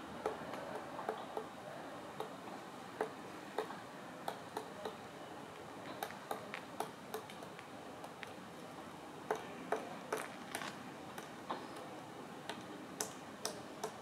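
Pileated woodpecker pecking at a tree trunk: irregular single knocks of its bill on the wood, one to three a second with short pauses, over a steady background hiss.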